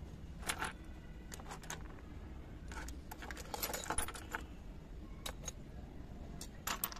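Miniature ceramic dishes and vases clinking against one another as they are picked up and set down in a heap, in several short clusters of light clicks, the busiest about three to four seconds in.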